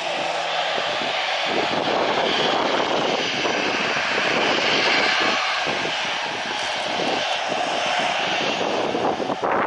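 Twin CFM56 turbofans of a Boeing 737-800 running at taxi power as the jet turns around on the runway, a loud, steady jet rush.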